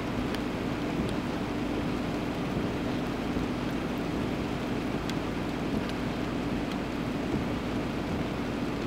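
Steady wind noise with a constant low hum underneath and a few faint clicks.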